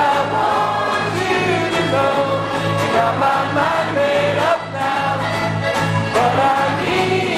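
A group of voices singing a song together over instrumental accompaniment with a steady, regular bass beat.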